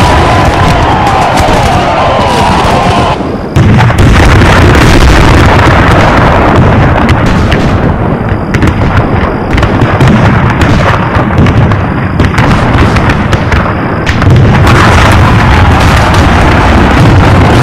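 Battle sound effects of massed musket and cannon fire: a loud, dense din of shots and booms, with a brief dip about three seconds in.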